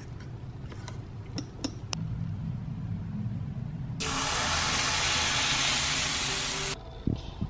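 A few light clicks of a utensil against a mixing bowl, then pancake batter sizzling in a hot frying pan as it is poured in. The sizzle is a loud, steady hiss that starts and cuts off suddenly.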